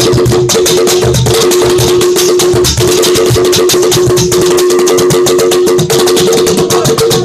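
Instrumental music: fast, busy percussion over two held notes and a pulsing bass line, with no vocals.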